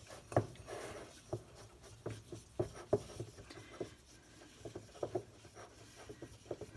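Fingers kneading a sticky baby-powder-and-hand-lotion slime dough in a small glass bowl: soft rubbing and squishing with scattered small clicks and taps.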